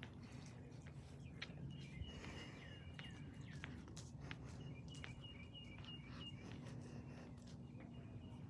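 A songbird calling in runs of quick, repeated high chirps, phrase after phrase, over faint outdoor background noise; a faint steady hum comes in past the middle.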